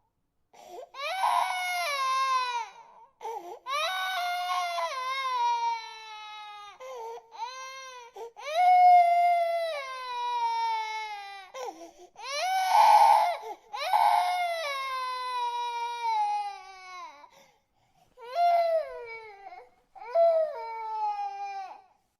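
A baby crying: a run of wailing cries, each falling in pitch, broken by short gasps for breath, with the cries growing shorter near the end.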